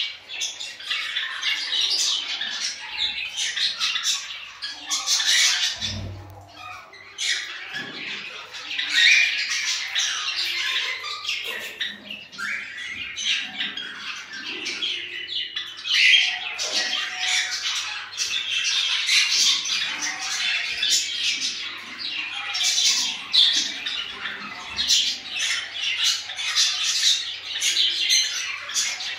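Cockatiels squawking and chirping, a near-continuous stream of short, shrill calls with hardly a pause. There is a single dull knock about six seconds in.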